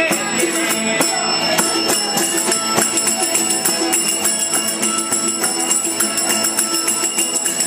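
Two acoustic guitars strumming a Spanish folk dance tune, with a small metal hand percussion instrument jingling and ringing in steady rhythm along with them.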